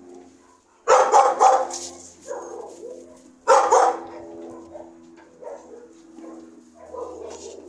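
Dog barking: two loud bouts of several quick barks each, about a second in and again about three and a half seconds in, with softer barks between.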